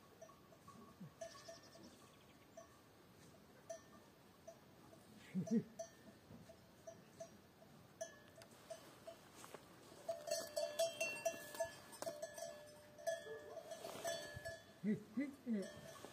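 A bell on one of the cows clanking in a steady rhythm about two or three times a second, becoming faster and louder about ten seconds in as the animal moves. Two short low animal calls come from the cattle, one about five seconds in and another near the end.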